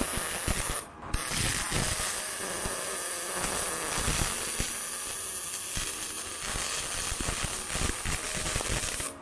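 Pulsed MIG welding arc on aluminium with AlSi filler wire and argon: a steady, dense crackling buzz, running clean and calm. It breaks off briefly about a second in, restarts, and stops sharply at the end of the bead.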